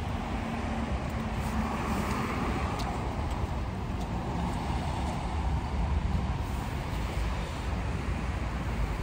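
Steady city street traffic: cars passing along the road with a continuous low rumble of engines and tyres.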